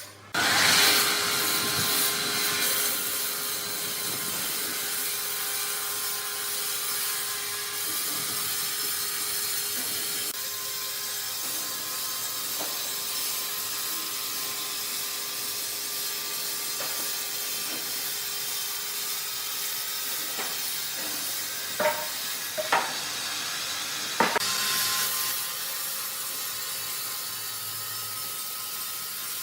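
Sawmill machinery running with a steady, hissing noise and a faint steady hum. Three sharp knocks come in quick succession about three quarters of the way through.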